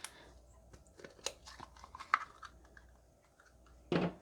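Plastic slime tub being opened: light clicks and crinkles of the lid working loose, with a few sharper ticks and a short louder sound near the end.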